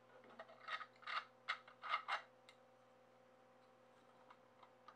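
Lament Configuration puzzle-box replica being handled, its sections clicking and knocking together: a quick run of about six sharp clicks starting about a second in.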